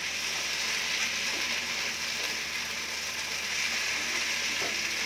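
Chilli paneer with onion and capsicum sizzling steadily in a hot frying pan while a spatula stirs it through the sauce.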